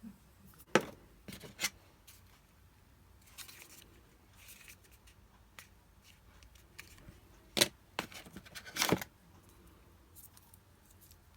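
Unboxing handling of an iPhone box and its packaging: several sharp clicks and snaps with short scraping, cutting and rustling sounds from cardboard and plastic.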